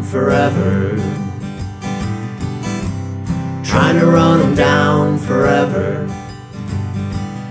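Acoustic guitar playing a blues tune, strummed and picked, with no singing.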